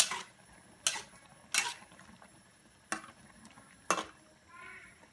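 A ladle knocking against a metal wok while noodles are stirred in broth: five sharp clinks, spaced about a second apart.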